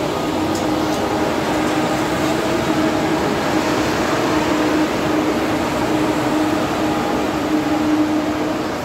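ICE high-speed train rolling slowly past along a station platform: a steady hum from the train's equipment over a continuous rolling rush of wheels on rail.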